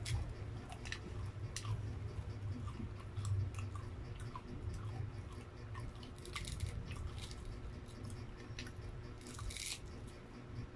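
Crispy battered fried chicken crackling as it is torn apart by hand and chewed: scattered small crunches and clicks, with a longer crackle about nine and a half seconds in.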